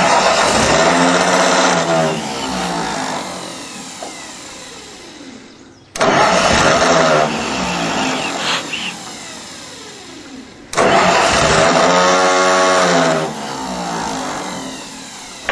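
Ford 641 Workmaster tractor's four-cylinder engine, fuelled by wood gas, cranked on the starter three times; each time it fires and picks up briefly, then fades away over a few seconds. The owner puts the failed starts down to the engine having flooded a little.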